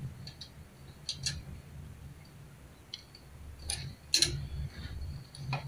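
Small plastic clicks and taps of a flat flex ribbon cable being pushed and seated into its connector on the TV panel's board: a handful of short ticks, the sharpest about four seconds in, over a low steady hum.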